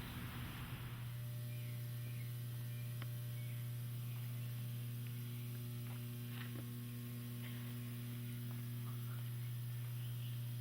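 Steady low electrical hum, like mains hum, with a few faint ticks.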